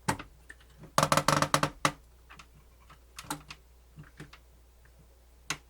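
Sharp clicks and taps of small plastic and metal parts being handled while taking apart a cassette deck's tape mechanism: a quick rattling cluster about a second in, then a few single clicks.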